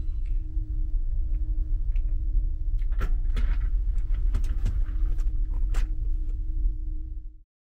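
Steady low drone of the ferry's engines with a constant hum. From about three seconds in, a run of clicks and rattles as a cloth roller blind is pulled down over the bunk window; the sound cuts off abruptly near the end.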